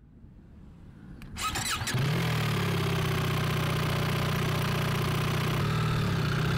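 BMW R1300GS boxer-twin engine being started: a click about a second in, a brief burst of cranking, then the engine catches about two seconds in and settles into a steady idle.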